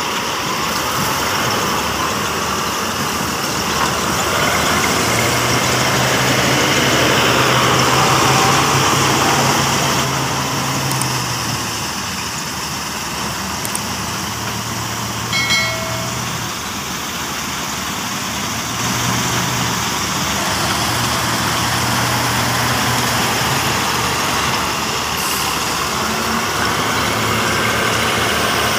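Caterpillar 966F wheel loader's six-cylinder diesel engine running under load, its pitch rising and falling as it revs to work the bucket. A short beep sounds about halfway through.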